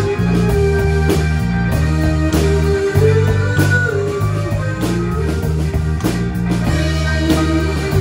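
Live synth-pop band playing: bass guitar carrying a steady line under synthesizer and regular drum hits.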